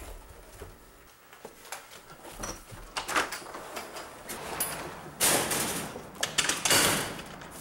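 A metal security screen door being handled: light knocks and clicks, then two loud scraping rushes about five and seven seconds in.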